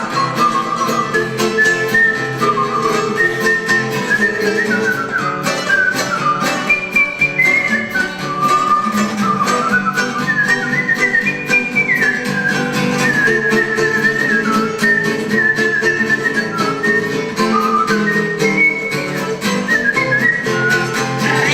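A whistled melody, gliding between notes, played over guitar accompaniment.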